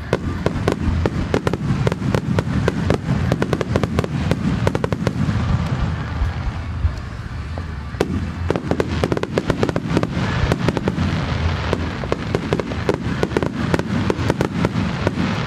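Starmine fireworks barrage: a rapid, unbroken string of launches and shell bursts, many sharp bangs and crackles a second over a low rumble.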